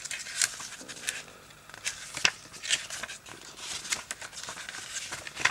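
Hands handling a film steelbook and its paper booklet: paper rustling and sliding, broken by several sharp clicks and taps, the sharpest a little after two seconds in and near the end.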